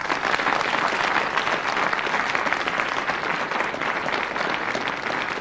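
Studio audience applauding, beginning suddenly and holding steady.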